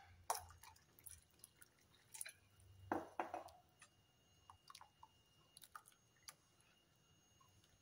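A steel spoon stirring thin rava dosa batter in a glass bowl: faint wet squishing and a few light clinks of metal against glass, loudest about three seconds in.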